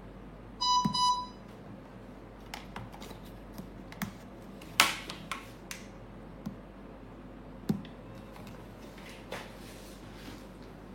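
A quick run of about three electronic beeps just under a second in, followed by scattered clicks and knocks, the loudest about five seconds in.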